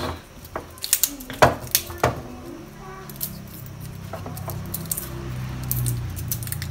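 Kitchen handling noises on a stainless-steel sink drainboard: a few sharp knocks and clicks in the first two seconds as a plastic bowl and a knife are set down and picked up, then quieter handling over a low steady hum that swells from about three seconds in.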